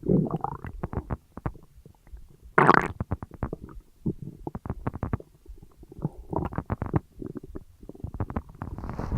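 Human stomach gurgling and rumbling while digesting a large meal: quick irregular runs of bubbling clicks, with a louder, fuller gurgle about two and a half seconds in.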